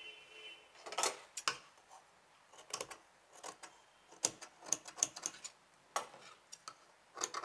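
Tailor's scissors snipping through folded cotton shirt fabric: a series of crisp, irregular snips, coming thick and fast about four to five seconds in.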